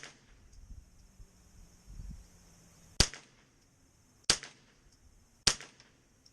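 Winchester Wildcat semi-automatic .22 LR rifle firing three shots, each a sharp crack with a short echo, spaced about a second and a quarter apart in the second half.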